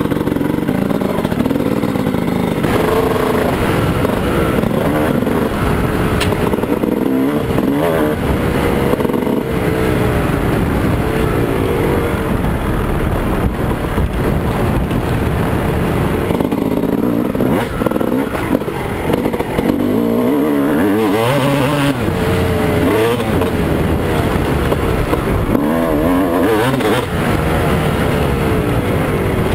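2001 Honda CR250's 250 cc single-cylinder two-stroke engine, fitted with a 10 oz flywheel weight, revving up and down again and again as the bike is ridden hard along a trail, heard from a helmet-mounted camera.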